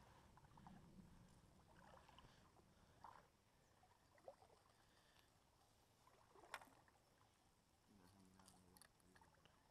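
Near silence: a faint wash of river water with a few small clicks, the clearest about two-thirds of the way in, and a faint low hum for about a second near the end.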